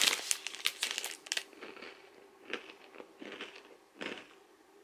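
Plastic granola-bar wrapper crinkling in the hand: a run of quick crackles at first, then a few scattered ones.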